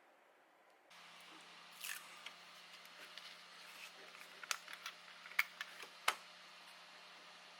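Small hard plastic parts clicking and tapping as they are handled and fitted together: a few sharp clicks, the loudest near the middle and two-thirds of the way through, over a steady low hum.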